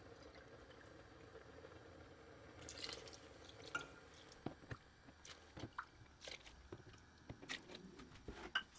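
Milk poured from a plastic gallon jug into a metal measuring cup and tipped into a stainless steel pot of milk, faint, with a short splash about three seconds in. Scattered small clicks and taps of the metal cup against the jug and pot follow.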